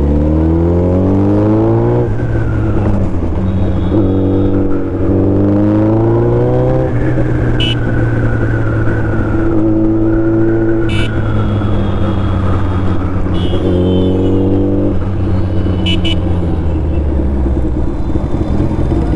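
Suzuki Hayabusa's inline-four engine under way in traffic: the revs climb three times, at the start, from about four to seven seconds in and again near fifteen seconds, each time dropping back to a steady run between. A few brief sharp ticks are heard over it.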